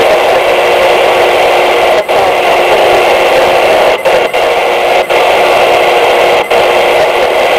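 Loud, steady radio static from the speaker of a Realistic Pro-43 handheld scanner tuned off-station, with no signal. The hiss cuts out briefly four times while new frequencies are keyed in.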